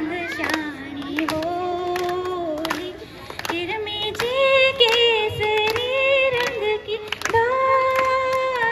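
A woman singing a Hindi devotional song (bhajan), holding long drawn-out notes, with sharp claps keeping time.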